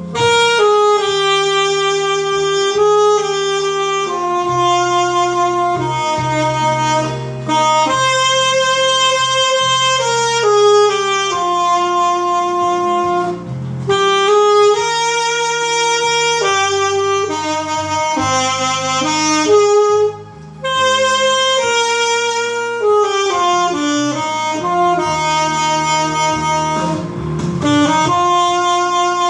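Saxophone playing a slow song melody in long held notes over a sustained low accompaniment, with a brief break for breath about two-thirds of the way through.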